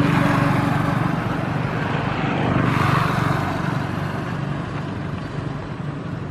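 A motor engine running with a steady hum, growing louder about halfway through and then fading away.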